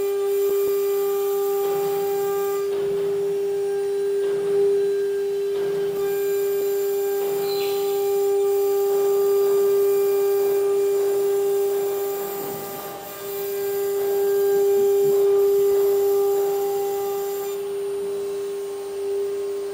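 CNC router spindle running at a steady high whine while its bit cuts shapes from acrylic sheet, with scraping cutting noise coming and going over the whine.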